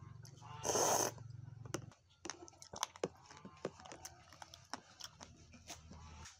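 Close-miked chewing: one loud crunching bite about a second in, then quieter wet mouth clicks and chewing.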